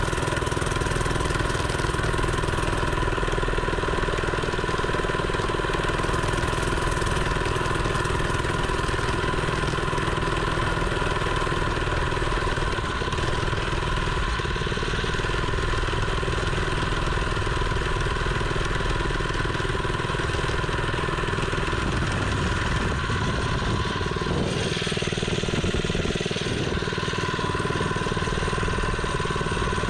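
Mini bike's small engine running steadily at a near-constant speed, its pitch shifting slightly about three-quarters of the way through.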